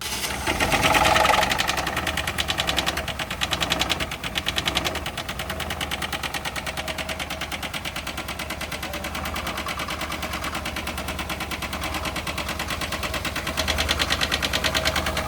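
Chevy HHR four-cylinder engine running with a bad rod knock: a loud, rapid, even knocking through the whole stretch. It is loudest in the first second or two, then settles to a steady knocking idle.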